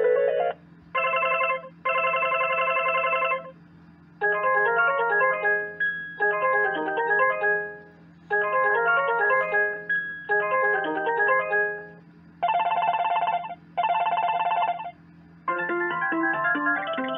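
Telecom videophone playing its built-in ringtone previews one after another: a double ring of two steady electronic bursts, a repeating run of notes that plays twice, another double ring, then a different melody starting near the end.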